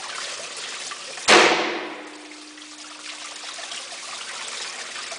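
A single shot from an EDM Arms .338 Lapua rifle about a second in, fired with a squib bullet lodged in the barrel ahead of it; the shot blows the squib out of the barrel. A faint steady ring lingers for about two seconds after, over a constant hiss of running coolant water.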